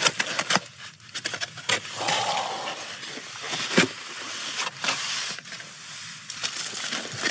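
Handling of a takeaway meal: a paper bag rustling and a polystyrene clamshell box being lifted out, set down and opened, with scattered clicks and scrapes and one sharper click a little under four seconds in.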